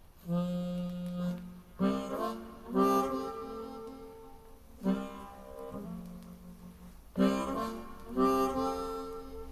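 Yamaha NS-3000 bookshelf speakers playing a vinyl record: the slow instrumental intro of a waltz, long held melody notes over chords, with a new phrase entering about every second or two.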